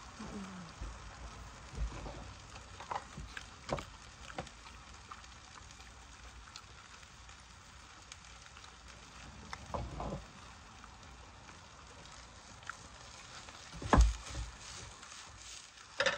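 Eating sounds: scattered light clicks and knocks of a spoon and chopsticks against a glass bowl, over a steady faint hiss. A louder thump comes near the end, as the glass bowl is set down on the wooden table.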